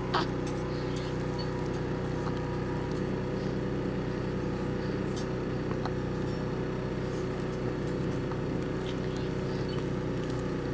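A steady low mechanical hum, with a few faint clicks and one brief sound just after the start.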